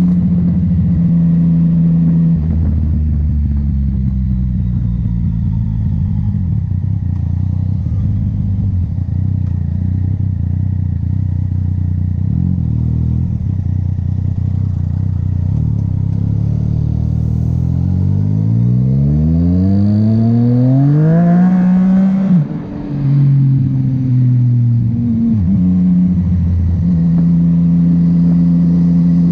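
Yamaha MT-09 motorcycle's inline-three engine and exhaust under way. The note holds steady, drops about two seconds in, climbs steadily for several seconds past the middle, then falls away sharply and settles back to a steady, higher note near the end.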